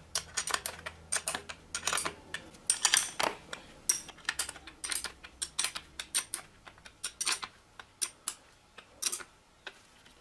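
13 mm wrench on a bicycle saddle's clamp bolt, clicking and clinking in quick irregular runs of short metallic ticks as the bolt is tightened onto the seat post.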